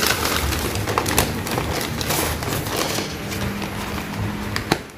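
Paper takeaway bag rustling and crinkling as food items are handled and pulled out of it, with a sharp click near the end.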